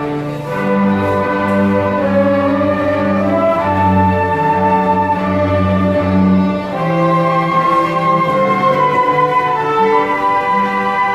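Flute ensemble playing a slow piece: held chords in several parts over a low bass line.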